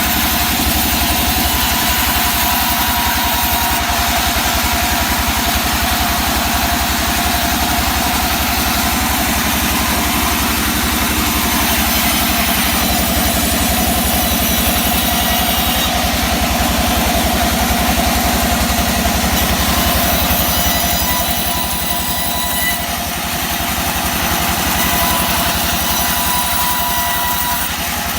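Sawmill running: a steady engine drone with a fast low pulse and a dense hiss over it, easing slightly in level for a moment about three-quarters of the way through.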